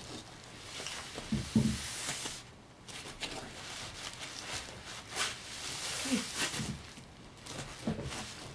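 A knife cutting and scraping into the hard rind of a large parami fruit in irregular strokes, with a sharper knock about a second and a half in.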